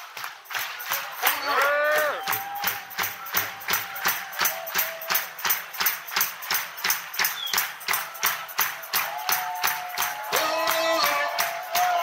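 Live band music with a male-range singing voice over a fast, steady beat of hand claps, about three to four a second, from a crowd clapping along. The singing comes in briefly near the start and again near the end.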